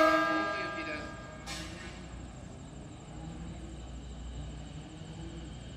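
The tail of an E233-series electric train's horn dying away over the first second, a short hiss about a second and a half in, then a low steady rumble and faint hum as the train starts to move off.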